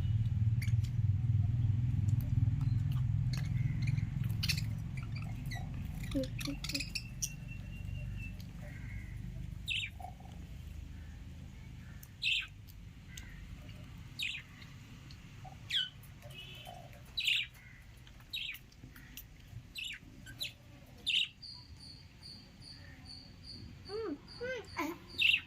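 Pet lovebirds chirping: short high chirps every second or two, over a low hum that fades away over the first several seconds. A fast, even series of high peeps comes in the last few seconds.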